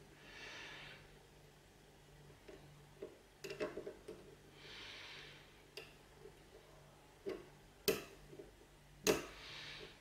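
A lock pick clicking and scraping against the wafers inside a Duo Illinois wafer padlock, scattered light clicks with two sharper ones near the end. Slow breathing close to the microphone comes every few seconds.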